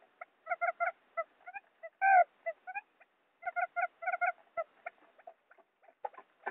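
Wild quail calls played as a hunting lure: quick runs of short, clipped notes at several a second, in bursts separated by brief pauses, with one louder, longer note about two seconds in.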